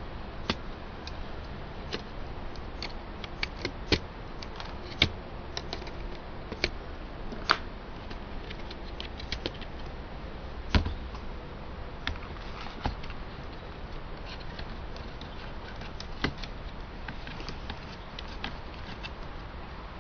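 Scattered small clicks and taps of laptop parts and tools being handled during disassembly, over a steady hiss; a few sharper knocks stand out in the first half.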